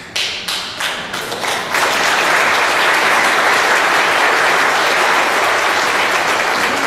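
Audience applauding: a few scattered claps build within about two seconds into full, steady applause, which begins to fade near the end.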